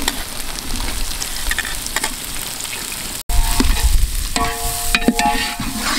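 Chopped vegetables sizzling in hot oil in an aluminium pot. After a cut about three seconds in, a steel spoon stirs and scrapes the pot, with clinks and short ringing metal tones over the frying.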